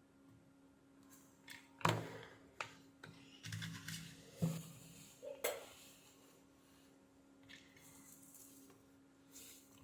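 A series of short clicks and knocks of small hard objects being handled, mostly between about two and six seconds in, over a faint steady hum.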